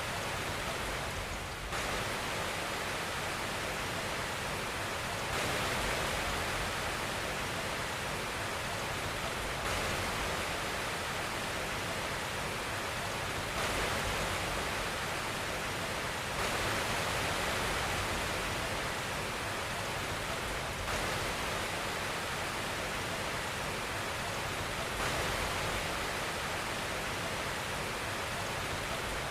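Steady, even hiss of white noise, with slight shifts in level every few seconds.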